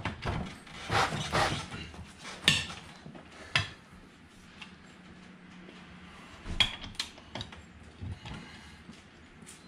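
Socket wrench with a 17 mm socket working the lug nuts on an ATV wheel: scattered sharp metal clicks and clinks, busiest about a second in, with a few single clicks later on.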